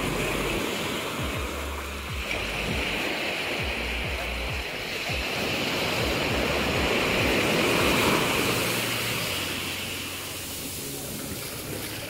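Small waves breaking and washing up a sandy beach: a steady rush of surf that swells to its loudest about eight seconds in and then eases.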